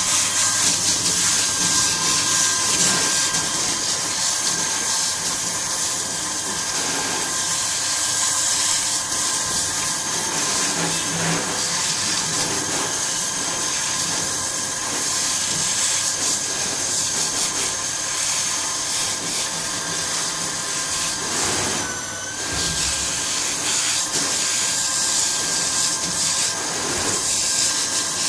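Motorized dog-wash equipment running with a steady hiss and a constant high whine, which dips briefly about 22 seconds in.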